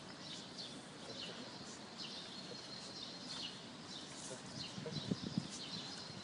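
Small birds chirping again and again over faint outdoor background noise, with a few flip-flop footsteps slapping on paving about five seconds in.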